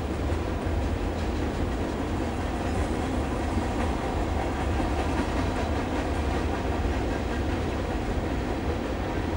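Freight train cars (autoracks, boxcars, then covered hoppers) rolling past at steady speed: a steady, deep rumble of steel wheels on the rails.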